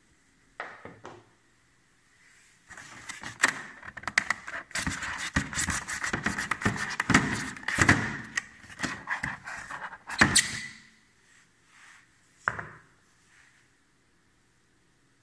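Unpacking noise from an edge bander and its packaging being handled: several seconds of rustling, scraping and knocks, with a sharp knock at the end of that run and one more knock about two seconds later.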